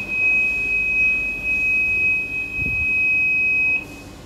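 Steady, high-pitched beep from an EDM machine's electrode contact buzzer, sounding while the copper electrode touches the workpiece: the signal that contact is made and the axis can be zeroed. It cuts off suddenly near the end as the contact is broken.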